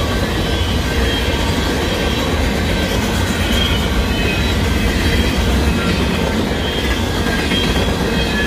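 Freight train of covered hopper cars rolling past at speed: a steady rumble and clatter of steel wheels on the rails, with brief high-pitched wheel squeals now and then.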